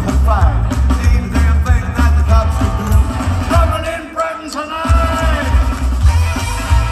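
A live rockabilly band: upright bass and drums keeping a steady beat under hollow-body electric guitar and singing, heard through a phone mic in the crowd. About four seconds in, the bass and drums drop out together for under a second in a stop, then come back in.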